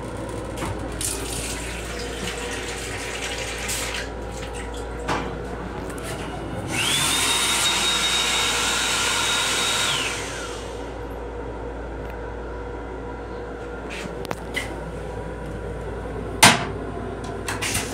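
Hand dryer in the sink unit of an M7 railcar restroom running for about three seconds: a rush of air with a high whine that rises as the motor starts and falls away as it stops. A single sharp knock comes near the end.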